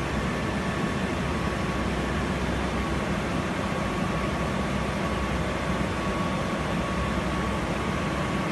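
Steady cabin noise inside the cargo hold of an Indian Air Force C-17 Globemaster III transport: an even rush of engine and air noise, heaviest in the low end, with a thin steady whine over it.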